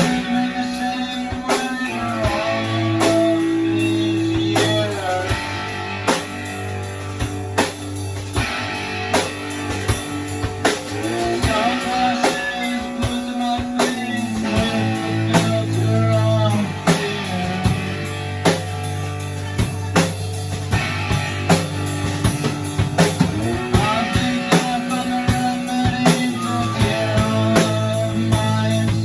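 Instrumental guitar jam: guitar with bent lead notes over a repeating three-chord progression, a drum kit keeping a steady beat, in a bluesy rock style.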